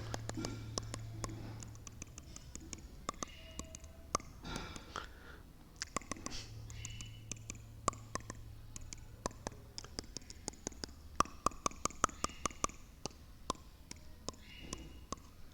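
Human teeth clicking and grinding against each other, close to the microphone, in a long irregular run of sharp clicks, demonstrated as a teeth-tapping "Morse code". A low hum runs under the clicks near the start and again about six to nine seconds in.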